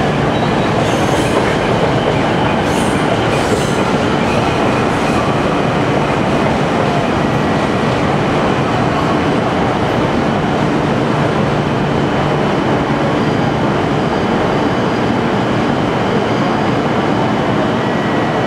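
Shinkansen train running on the tracks, a loud, steady rail noise that holds at an even level.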